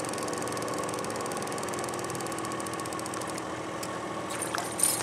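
A boat motor running steadily at low speed, its pitch easing slightly about two seconds in. A few sharp clicks and knocks come near the end.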